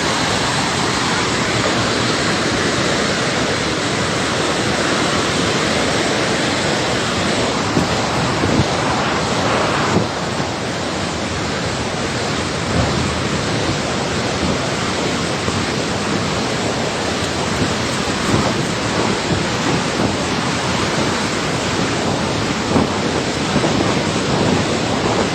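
A river in full flood rushing past: a loud, steady wash of water noise that dips slightly about ten seconds in.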